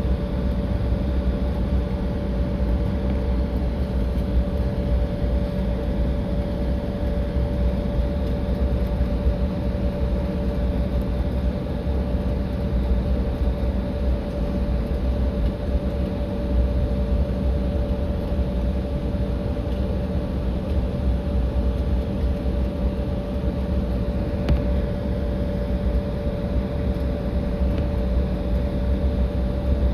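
Jet airliner's engines heard from inside the cabin, running steadily: a constant hum with a deep rumble and a faint rushing noise, no rise or fall in pitch.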